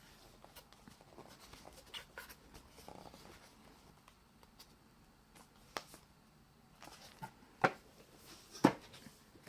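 Soft handling and rustling of an album CD and its packaging, with a few sharp clicks in the second half, the loudest two near the end.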